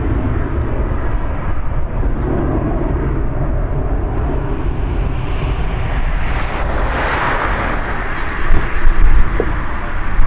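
Jet engines of a Ryanair Boeing 737 climbing away after takeoff: a steady deep rumble. Wind buffets the microphone, with louder gusts near the end.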